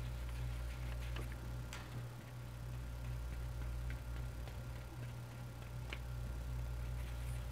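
Faint, irregular soft taps and clicks of a round watercolour brush dabbing paint onto wet cold-press paper and into the paint pans, over a steady low hum.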